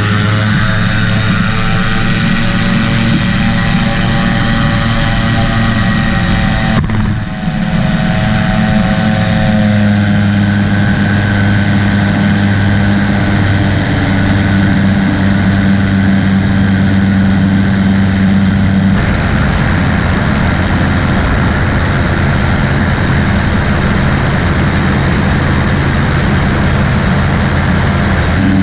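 Amphibious trike's engine and pusher propeller running steadily at full takeoff power. The hull hisses through the spray until it leaves the water about seven seconds in, after which the engine drones on through the climb.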